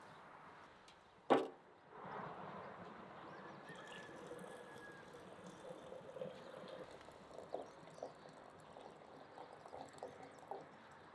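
Water running in a thin steady stream from a samovar's tap into a glass teapot, after a single sharp knock about a second in. A few small ticks come through the pouring near the end.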